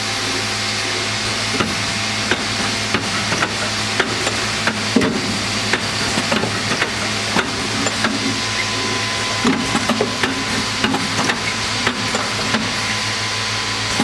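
Automatic tube plugging machine running through its clear-out cycle: a steady low hum under irregular sharp clicks and clacks from its pneumatic cylinders and indexing turntable.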